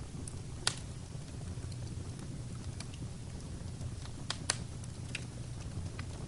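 Fire burning in a fireplace: a steady low rumble of flames with sharp crackles and pops, the loudest about a second in and a quick pair about two-thirds of the way through.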